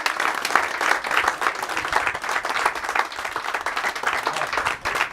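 Audience applauding: many hands clapping together, slowly tapering off.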